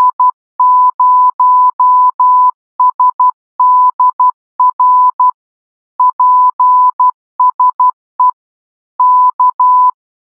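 Morse code sent as a single clean tone of about 1 kHz, in dots and dashes. The first group spells the special-event callsign GB0SDR, followed by a further group of characters.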